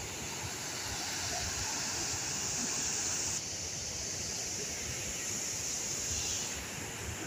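Steady rushing of a swollen, muddy river running over rocky rapids.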